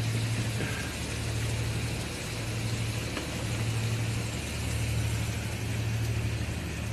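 A steady low engine hum, like a motor idling, under a constant hiss.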